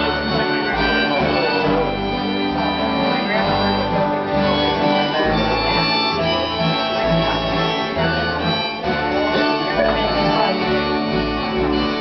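A harmonica plays a lead line of held notes over a country-gospel band of strummed acoustic guitars and a plucked upright bass.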